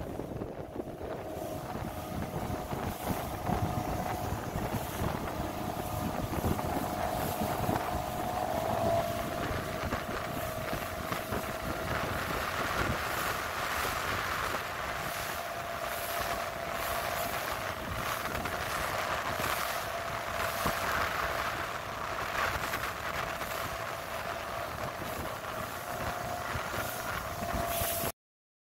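Motorboat under way: a steady engine tone that drops slightly in pitch about nine seconds in, over a constant rush of water and wind buffeting the microphone. The sound cuts off suddenly near the end.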